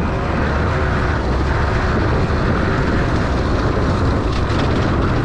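Small-bore two-stroke dirt bike engine running steadily on the throttle, its note wavering slightly, over a dense rush of riding noise.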